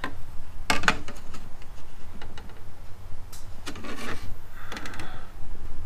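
A spirit level being handled against a metal garage door opener rail: a few light knocks and clicks, then a short scrape as it is slid along the rail, over a low rumble.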